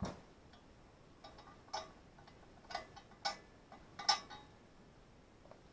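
Rusty steel brackets of a homemade John Deere ball mount and an adjustable wrench knocking and clinking against each other and the workbench as they are handled. A sharp knock comes at the start, then several short separate clinks, the loudest just after four seconds in.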